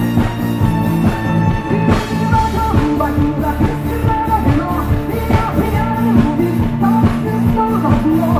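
Rock band playing live, with drum kit and guitars, and a woman's lead vocal coming in about three seconds in.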